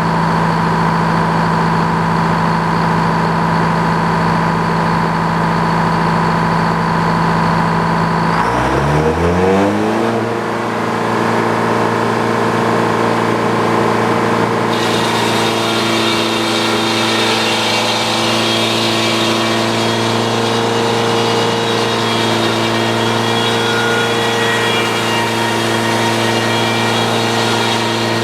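Sawmill engine running steadily, then revving up smoothly about nine seconds in and holding at full speed. From about fifteen seconds a hiss joins the engine, which fits the band blade starting to cut into the pine log.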